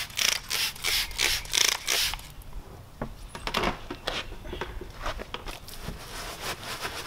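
A trigger spray bottle of wheel cleaner squirted quickly several times, a sharp hiss with each pull. Then come softer, irregular scrapes and rubs as a small detailing brush works into the wheel.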